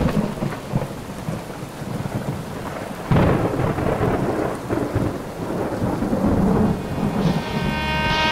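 Steady rain with rolls of thunder: one rumble right at the start and a louder one about three seconds in.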